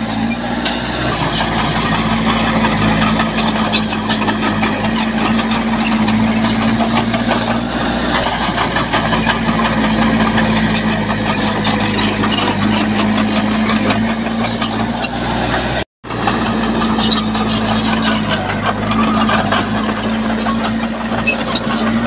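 Heavy diesel earthmoving machinery running steadily under load, with light clatter over the engine. The sound drops out completely for a split second about three-quarters of the way through, then carries on as before.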